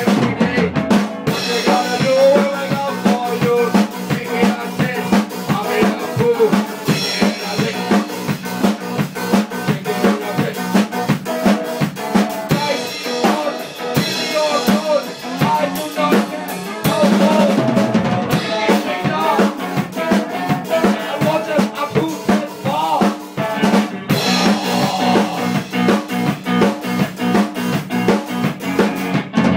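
A live band playing improvised ska music: a drum kit keeps a steady beat with snare and bass drum, under pitched instruments.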